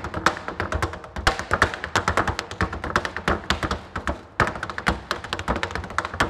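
Tap shoes striking a wooden tap board in a rapid run of sharp taps, with a brief break a little past four seconds in.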